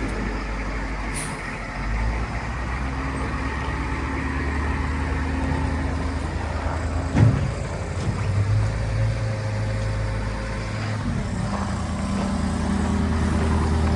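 Diesel engine of a Volvo MC115C skid steer running steadily, its engine note shifting about halfway through as the machine works snow, with a single sharp knock about seven seconds in.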